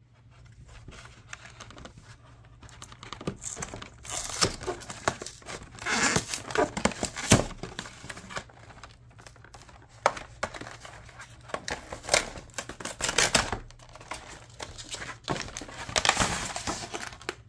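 A cardboard trading-card collection box with a clear plastic window being handled and torn open: irregular crinkling, tearing and sharp clicks of cardboard and plastic, in bursts that grow louder about four seconds in.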